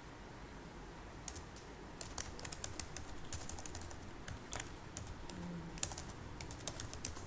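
Typing on a computer keyboard: irregular keystroke clicks, starting about a second in and coming in quick runs with short pauses.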